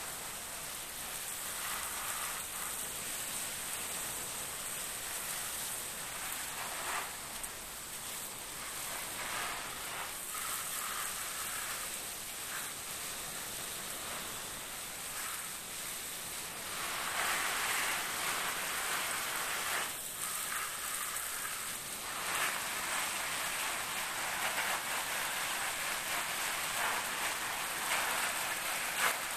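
Water spraying from a hose nozzle onto leaves and concrete: a steady hiss and patter, louder in stretches in the second half.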